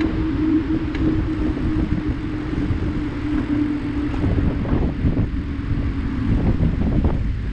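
Riding noise from a moving bicycle on a paved path: wind rumbling on the microphone and tyres rolling, with a steady hum that drops slightly in pitch and fades near the end.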